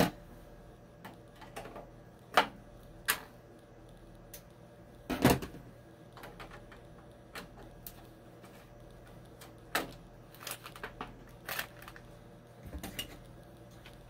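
Scattered clicks and knocks of a screwdriver and loosened wires against the metal terminal screws of an electric water heater's thermostat. The loudest knock comes about five seconds in.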